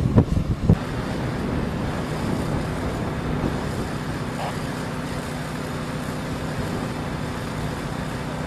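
A few loud thumps in the first second, then the steady drone of a running motor vehicle engine with faint traffic noise.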